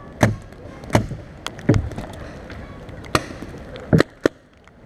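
Irregular sharp cracks of guns firing in a team shooting game, about seven in under five seconds, over a low rumbling background that falls quiet near the end.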